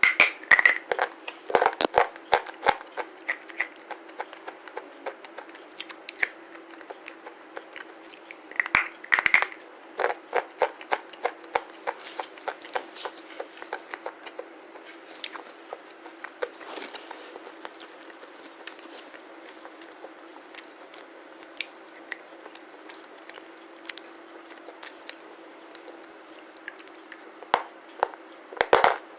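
Close-up biting and chewing of a black slate bar: sharp crunches and cracks come in clusters, densest at the start, around the middle and near the end, with quieter chewing between. A faint steady hum runs underneath.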